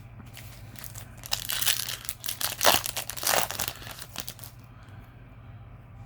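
Foil booster pack wrapper crinkling and tearing as a Yu-Gi-Oh! pack is opened, a burst of crackling that starts about a second in and dies away after about four and a half seconds.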